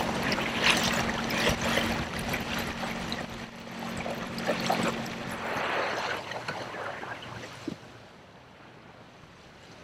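Water splashing and rushing along a kayak hull under way, with a steady low hum that stops about five and a half seconds in. The water sound fades near the end.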